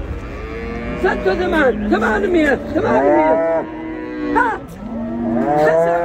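Cattle mooing repeatedly, several calls following and overlapping one another.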